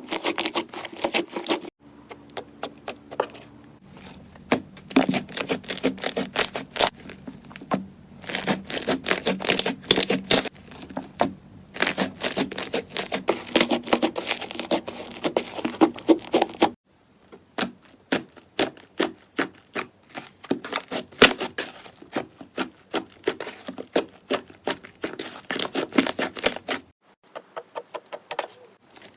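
Slime being squeezed and poked by hands, making dense, irregular crackling clicks and pops. The sound changes abruptly a few times as one clip cuts to the next.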